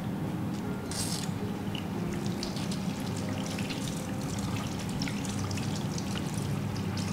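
Water trickling and pouring, with many small irregular splashes and ticks over a steady low hum.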